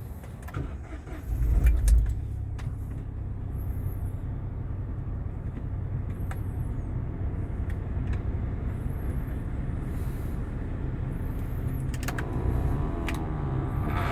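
2018 Ford Ka with its engine idling and the air conditioning on: a loud low thump about two seconds in, then a steady low hum with a few clicks. This is the unexplained noise the owner hears when switching the air conditioning on.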